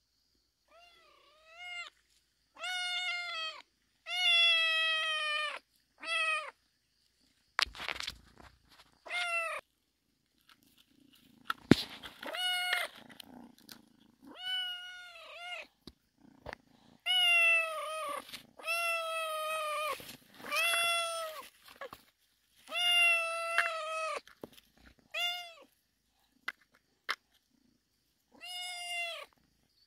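Kitten meowing over and over, about a dozen short rising-and-falling calls with pauses between, and a few sharp knocks in between.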